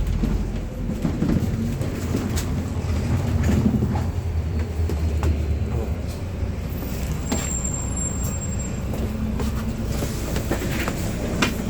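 Bus interior while driving: a steady low engine and road rumble with scattered rattles and knocks from the cabin.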